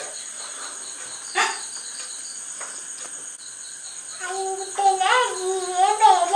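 Insects chirping in a steady high buzz, with a faster pulse of chirps at about five a second. About four seconds in, a young child's voice starts singing over it.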